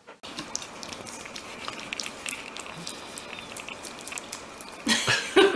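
Puppy lapping and smacking at soft food in a dish: a run of small, irregular wet clicks over a steady hiss. A person starts laughing loudly near the end.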